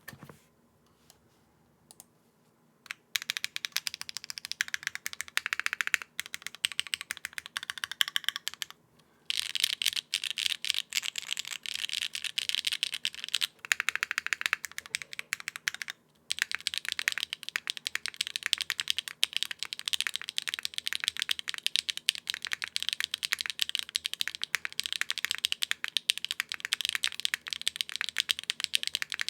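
Typing on a Bakeneko mechanical keyboard with HMX Sunset Gleam switches, DCS-profile keycaps, a half FR4 plate and no foam: a few stray clicks, then fast continuous keystrokes from about three seconds in, with brief pauses about nine and sixteen seconds in.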